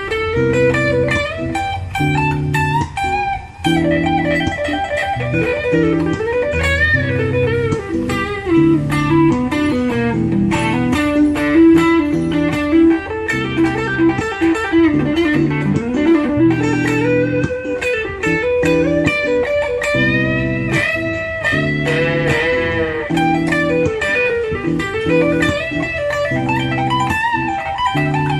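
Guitar music played through an old amplifier: a plucked, wavering melody line over repeated low chords, without a break.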